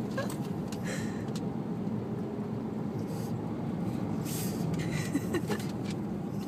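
Steady low hum of a car's engine and road noise inside the cabin, with a few short breathy puffs and snorts from the dog about a second in and again around four to five seconds in.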